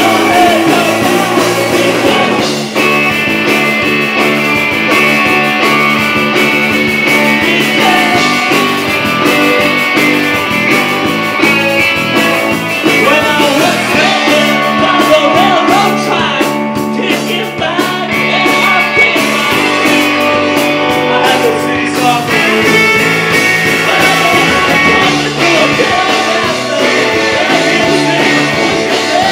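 Punk rock band playing live, with distorted electric guitars and drums under a lead singer singing into the microphone.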